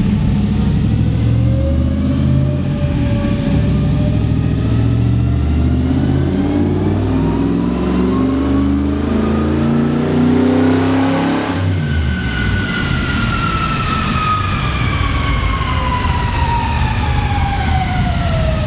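Small-block Chevy V8 of 377 cubic inches in a Scarab race car making a full-throttle dyno pull, its pitch climbing steadily for about twelve seconds. It then abruptly lets off, and a clear whine falls slowly in pitch as the drivetrain coasts down on the rollers.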